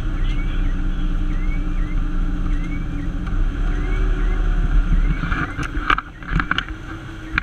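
A fire engine tanker's diesel engine drones inside the cab on the road, with a faint siren sweeping up in pitch about every two-thirds of a second. From about five and a half seconds in, knocks and rattles sound in the cab and the engine sound drops.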